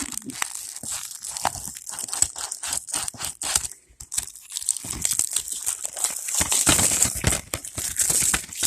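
Plastic wrapping being torn and crinkled off a new DVD case: a dense run of crackling and rustling that grows louder near the end.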